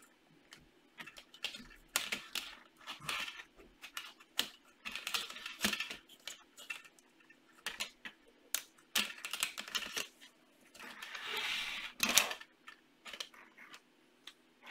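LEGO Technic plastic pieces clicking and rattling irregularly as they are handled and pushed into place, with a longer scraping rustle about three-quarters of the way through.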